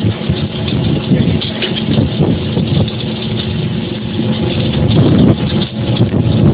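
Concrete curbstone and block making machine running: a loud, steady mechanical drone with a constant hum through it.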